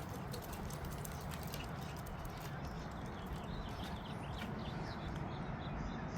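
Faint, quick clicking and scuffling of dogs' feet on the ground as the dogs play and chase one another.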